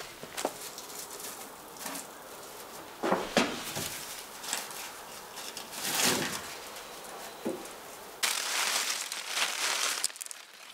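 Dry corn husks and cobs rustling and crinkling as they are handled and bagged, in several separate bouts. From about eight seconds in, a denser, louder rustle of corn plant leaves.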